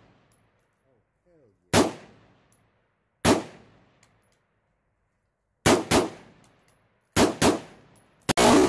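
A 7.5-inch AR-15 pistol in 5.56, firing Remington .223 55-grain rounds in semi-automatic fire: about seven sharp shots, each with a short echo. The first two come a second and a half apart, then the shots come in quicker pairs near the end.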